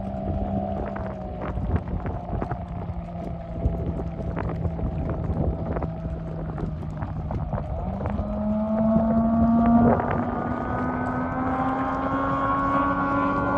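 70 hp Johnson outboard motor on a small race boat running at speed, a steady engine note that sags slightly about a second in, then climbs in pitch and grows louder over the second half. Wind buffets the microphone.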